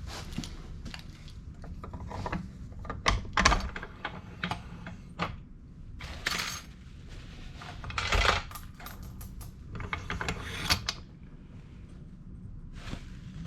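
Metal tools and copper pipe pieces being handled: irregular clicks and clinks with a few short scrapes, over a steady low hum.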